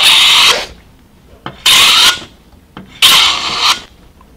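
Fixed-blade scraper plane scraping across knotty hard beech in three quick strokes, each a short, hissing scrape of about half a second.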